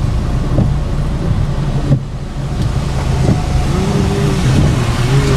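Car cabin while driving in rain: steady engine hum and road and rain noise, with the windscreen wipers knocking at the end of each sweep about every second and a half. A brief wavering tone sounds about four seconds in.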